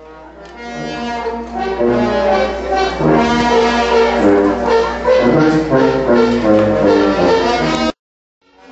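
A brass band playing a melody of held notes, swelling in over the first couple of seconds. It cuts off suddenly about 8 seconds in, and the music fades back in just before the end.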